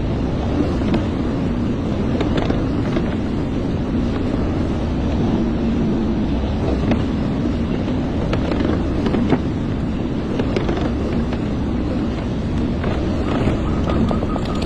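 Hyundai hydraulic excavator's diesel engine running steadily under work, with scattered faint knocks. A thin steady whine comes in near the end.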